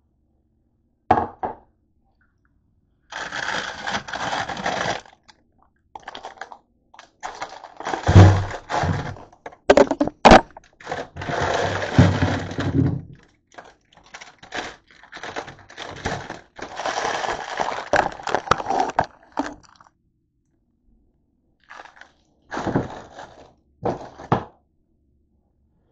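Rustling and handling noise with scattered knocks and thumps, the loudest a heavy thump about eight seconds in, and a couple of short knocks near the end.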